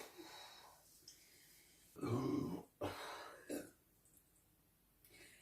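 A woman burping: a faint breath at first, then a burp about two seconds in, followed by two shorter ones.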